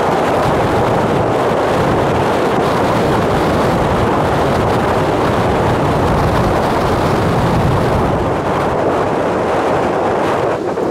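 Wind buffeting the camera's microphone: a loud, steady rush of noise.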